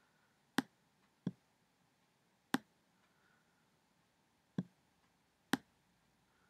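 Five sharp computer mouse clicks at uneven intervals.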